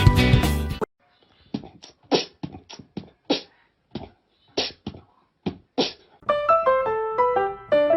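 Background music stops abruptly about a second in. About a dozen short, sharp sounds follow at irregular spacing, and piano music starts near the end.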